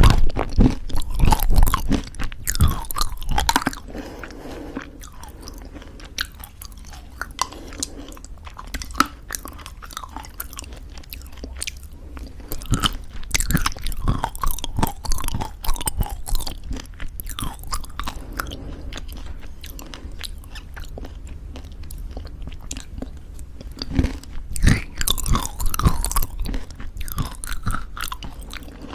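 Close-miked chewing of crunchy homemade granola in thick yogurt: irregular crisp crunches and wet mouth sounds, louder in bursts near the start, midway and near the end, with quieter chewing between.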